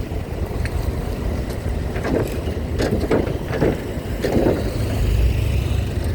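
Low engine rumble of trucks and cars driving aboard a ferry, with a few short knocks. The rumble grows heavier about five seconds in.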